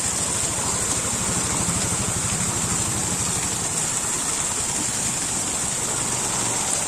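A motor vehicle engine idling, with a fast even pulse low down that is strongest in the first half, over a steady high-pitched hiss.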